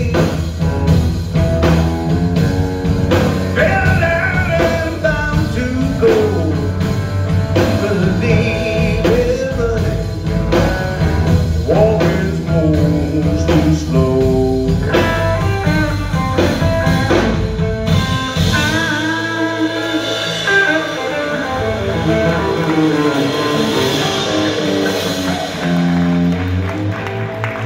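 Live blues band playing: electric guitar lead lines with bent notes over electric bass and drums. About eighteen seconds in, the drums and bass drop back and the guitars carry on alone, with the low end returning briefly near the end.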